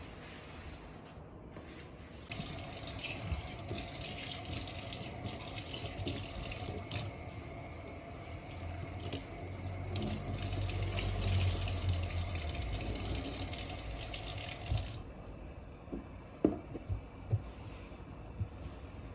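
A water tap running into a sink: it is turned on about two seconds in, runs steadily for about twelve seconds, then is turned off. A few light clicks and knocks follow near the end.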